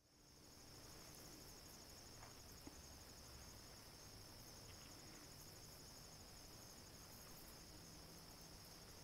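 Faint, steady high-pitched trilling of a cricket chorus, fading in over the first moment and then holding unchanged.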